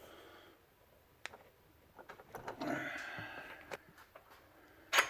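Workbench handling noises while a bench vise is being worked on: a few light clicks, a scuffling, scraping stretch in the middle, then one sharp knock near the end.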